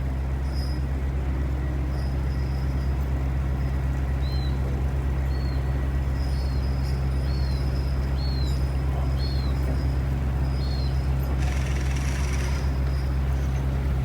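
Fishing boat's engine running with a steady low drone. Over it, a run of seven short high chirps about once a second, then a brief hiss near the end.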